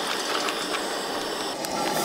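Coleman two-burner propane camp stove burner running with a steady hiss, with faint ticks of food and utensils at the pans.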